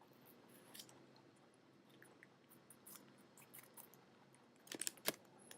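Pet rabbit chewing a piece of apple: faint, irregular crunching clicks, with a few louder ones near the end.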